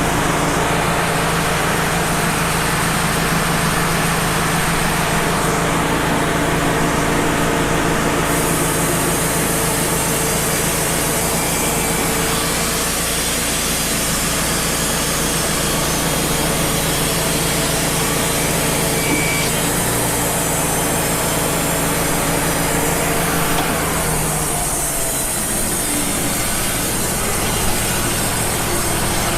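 Wood-Mizer LT35 HD portable band sawmill running, its blade making a light skim cut along an eastern red cedar log. Near the end the cutting noise eases and the engine note drops as the cut finishes.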